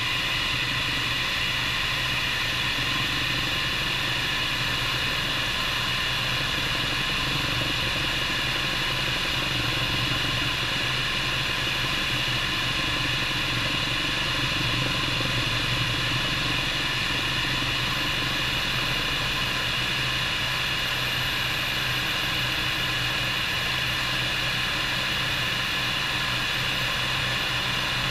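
Bell 430 helicopter's twin turboshaft engines and rotor running steadily: a constant high turbine whine over a low drone, with no change in power.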